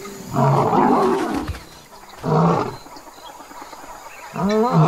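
African lions snarling and growling: a harsh snarl over a second long, then a shorter one, and near the end a pitched call that rises and falls.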